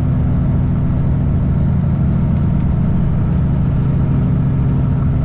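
Heavy truck's engine and road noise, a steady low drone while cruising at constant speed on the highway.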